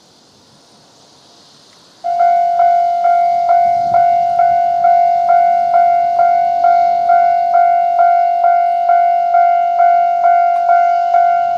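A Japanese level-crossing warning bell starts about two seconds in and rings steadily at its normal tone. It strikes a little over twice a second, each ding ringing on into the next so that a steady tone runs beneath the strikes.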